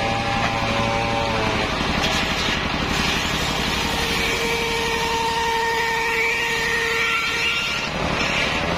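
A single-cylinder stationary engine runs steadily, belt-driving a large circular saw blade. The saw cuts through a mahogany log, spins free with a ringing tone once the cut ends, and bites into a new board near the end.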